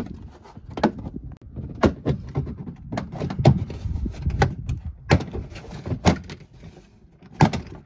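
Plastic retaining clips of a 2019 Toyota RAV4's interior trim panel snapping loose as the panel is pulled off by hand: a run of about nine sharp pops and knocks, the loudest near the end, with the rustle and rumble of the panel being handled.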